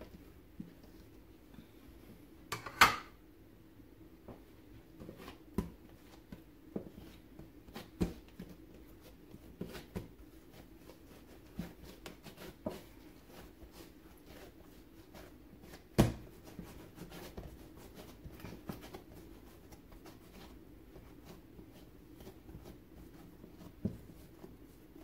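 Quiet hand-handling of bread dough on a silicone baking mat as it is cut with a knife and then shaped into a loaf: scattered soft taps and knocks, with two louder knocks, one about three seconds in and one about halfway through, over a faint steady hum.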